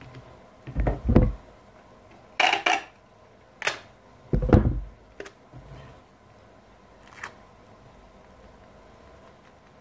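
Hands handling a black plastic sanding pad and a sheet of sandpaper on a workbench: a pair of dull knocks about a second in, a few short sharp rasps of paper, then a heavier knock with scraping, and a faint click near the end.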